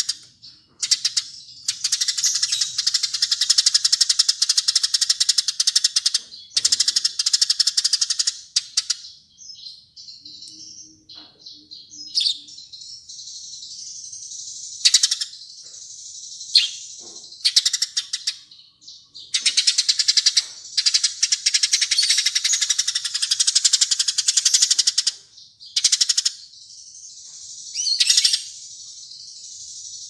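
Layered recordings of small songbirds' calls: long bursts of rapid, dry, high rattling trills broken by short sharp chirps, with a quieter, sparser stretch about ten to fourteen seconds in.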